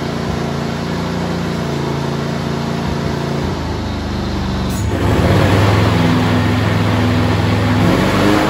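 John Deere GX345 garden tractor's 20 hp liquid-cooled Kawasaki FD611V twin-cylinder engine running steadily as the tractor moves. About five seconds in there is a sharp click, and the engine gets louder and fuller.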